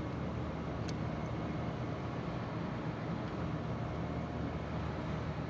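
Packaged HVAC unit running: a steady low mechanical hum with a faint tick about a second in.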